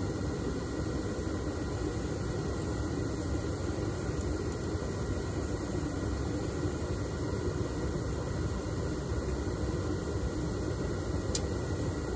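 Propane burner of a homemade foundry furnace firing steadily, a constant rushing noise as the furnace melts an aluminium charge.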